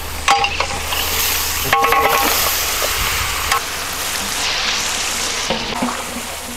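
Goat-trotter broth poured from a large steel vessel into a big pot of simmering gravy: a steady splashing rush of liquid. Metal vessels clink near the start and again about two seconds in.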